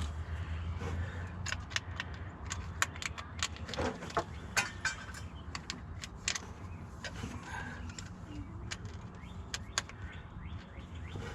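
Irregular light metallic clicks and clinks of hand tools and engine fittings being handled during reassembly, over a low steady hum.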